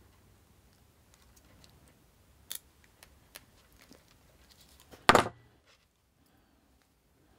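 Side cutters snipping the tag end of a steel leader wire: a few light clicks of handling, then one sharp snip about five seconds in.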